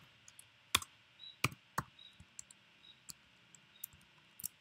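A few scattered clicks of computer keys and a mouse while code is finished off and a block of text is selected. The clearest clicks come about three-quarters of a second in, around a second and a half in, and as a quick pair near the end.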